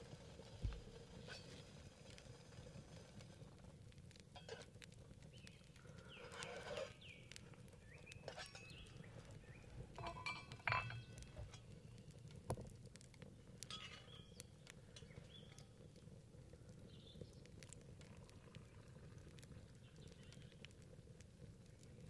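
Faint, scattered clinks and knocks of a metal camping mug being handled and set down, the loudest cluster about ten seconds in, over a faint low steady rumble.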